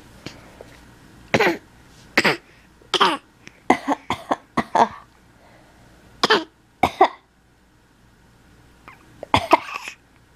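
A baby coughing over and over: about a dozen short coughs in small clusters with pauses between them. They are play coughs made for attention, not the coughs of an illness.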